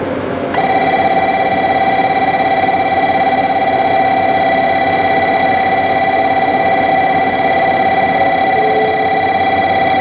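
Electronic station platform signal bell starting about half a second in and ringing on as one steady tone with higher overtones.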